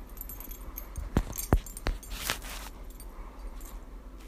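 An Australian Cattle Dog–American Staffordshire Terrier cross playing tug-of-war with a knotted rope toy held in a person's hand. There are three sharp knocks a little over a second in and a short hiss just after them.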